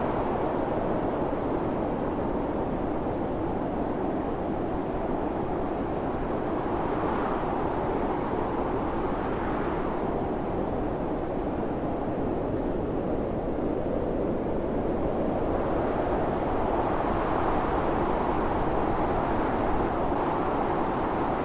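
Blizzard wind blowing steadily, a dense rushing noise that swells in gusts every few seconds.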